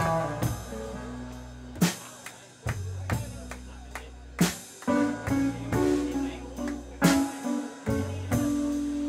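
Live band playing an instrumental passage: electric guitar lines over bass and a drum kit, with a strong drum accent about every two and a half seconds.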